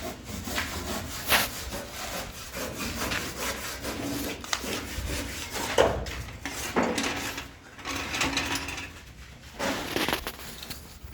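Aerated-concrete (gas block) cutting machine sawing through block: irregular rasping, scraping strokes, with a couple of sharper knocks.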